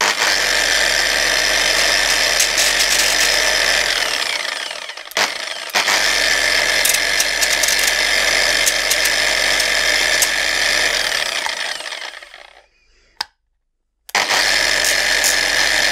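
Angle grinder fitted with a sandpaper backing pad, run in short passes to sand the bottom edge of a 3D-printed plastic part and take off the ridge that FDM printing leaves there. It runs, winds down about four seconds in, blips on briefly, runs again until it winds down around twelve seconds, and starts up once more near the end.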